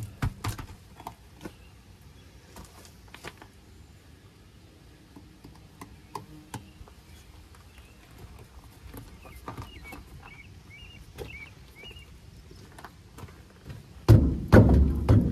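A spare trailer tire on its wheel knocked and set down on gravel, with sharp knocks at the start and sparse small clicks after. Near the end come loud footsteps crunching on gravel, the loudest sound, and faint bird chirps are heard in the middle.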